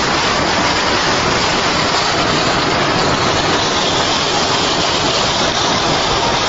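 A steady, loud rushing noise with no distinct tone or rhythm.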